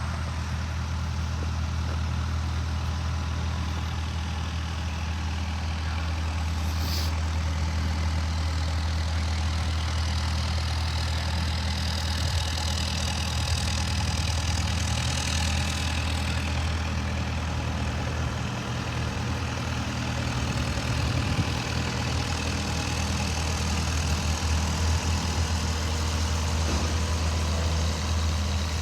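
IHI 55V4-F mini excavator's diesel engine idling with a steady low hum.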